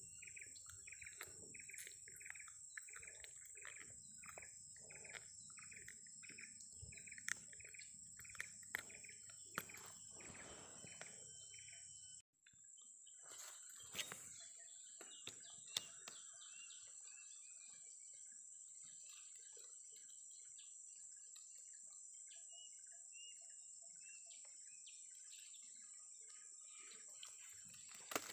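Faint swamp ambience: a bird calls a repeated note about twice a second for the first ten seconds or so, then gives only scattered chirps, over a steady high-pitched insect drone.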